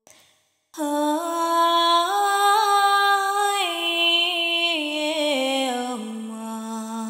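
A woman's voice singing a slow, wordless melody of long held tones, as in sound-healing vocal toning. It steps up through a few notes and then back down to a low note held near the end.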